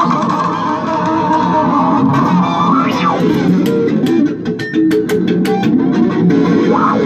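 Experimental electric guitar played with a bamboo skewer and a whiskey bottle over guitar loops and electronics: layered sustained tones, a sliding pitch sweep up and back down about three seconds in and again near the end, and a run of sharp clicks in the middle.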